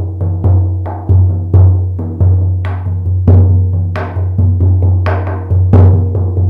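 50 cm shaman frame drum struck in a steady beat, about two strokes a second. Each stroke gives a deep boom that rings on under the next, with some strokes hit harder and brighter than others.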